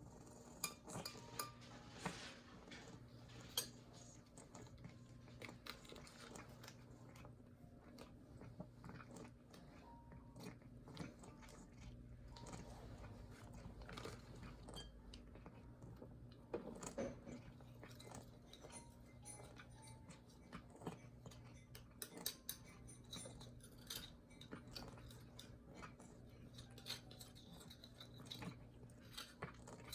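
Faint chewing of a cat eating: soft, irregular crunches and small clicks, over a low steady hum.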